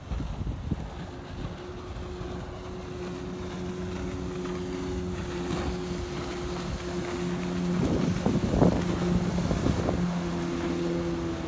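Suzuki 15 hp outboard motor running at speed, pushing a Whaly 270 boat past: a steady drone that grows louder as the boat comes closest about eight seconds in. Wind rumbles on the microphone near the start.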